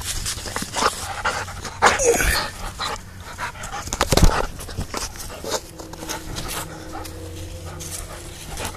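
A blue-nose bully dog panting close by, amid short knocks and rustles.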